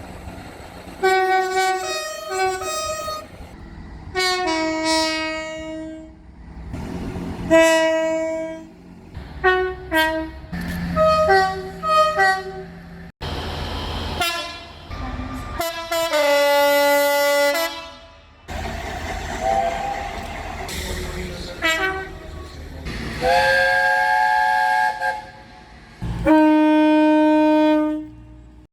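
Train horns sounding one after another, many as two-tone blasts stepping between a higher and a lower note. Short toots alternate with long held blasts, the loudest and longest near the end, over the low rumble of the trains, with abrupt cuts from one recording to the next.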